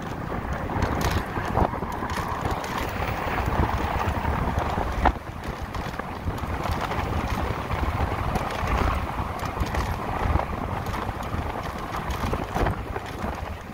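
Wind buffeting the microphone, with tyre and road noise, as an electric motorcycle rides at speed, with no engine sound. A couple of sharp knocks come about a second and a half in and again about five seconds in.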